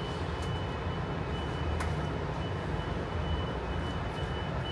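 City traffic noise from the streets below: a steady low rumble of passing vehicles, with a faint steady high-pitched tone over it.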